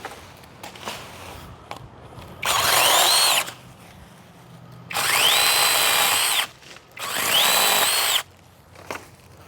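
DocSmart 8-inch cordless brushless mini chainsaw run in three short bursts while trimming tree branches. Each time its motor whine climbs quickly, holds steady, then falls away as the trigger is let go.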